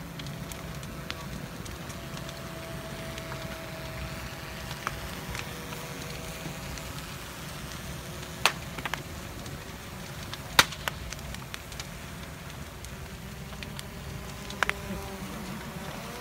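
A large fire, a burning wooden king boat and the blazing pile beneath it, with a steady low rushing roar of flames. Sharp cracks and pops break through it several times in the second half, the loudest about ten seconds in.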